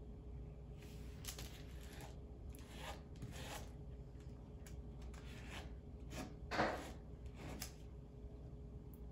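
Spatula scraping ointment into a small plastic ointment jar: a series of short scrapes and rustles as the ointment is worked down the sides, the loudest about two-thirds of the way through.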